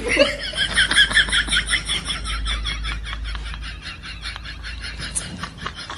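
Comedic reaction sound effect: a rapid, even train of short animal-like chirps, about five a second, fading gradually and cutting off near the end.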